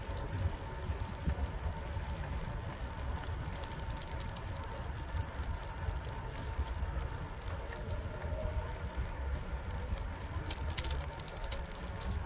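Bicycle rolling along a paved path, heard from the handlebars: a steady low rumble of tyres and wind on the microphone, with a few light rattles near the end.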